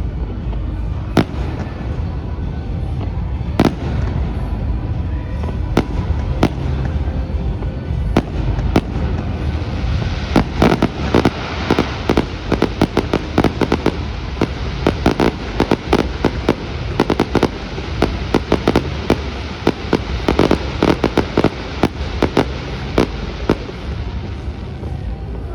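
Fireworks firing: scattered bangs at first, then a dense, rapid volley of cracks from about ten seconds in that thins out shortly before the end.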